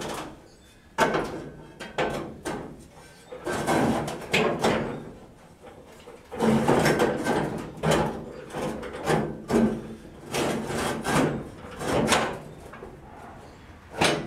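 Length of steel 2-inch angle iron being handled against a pickup bed's sheet-metal front panel: irregular scraping and knocking of metal on metal, with a sharp knock near the end.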